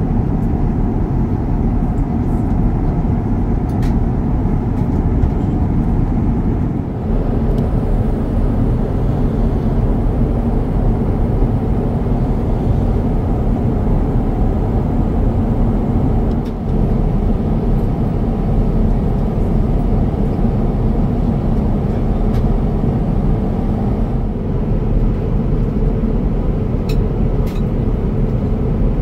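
Airbus A350-900 cabin noise in flight: a steady, even rumble of engines and air rushing past the fuselage, weighted to the low end.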